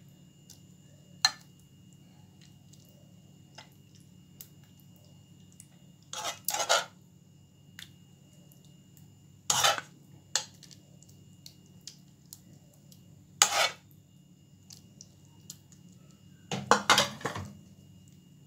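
Metal spoon clinking and scraping against cookware while spooning and spreading minced-meat tomato sauce over lasagne sheets in a glass baking dish. About six short, sharp clinks at irregular intervals over a steady low hum.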